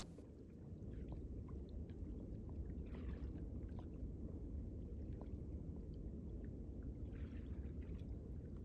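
Quiet water sounds of a canoe being paddled on a calm sea: small drips and splashes, with two soft paddle strokes about three seconds in and again a few seconds later, over a low steady rumble.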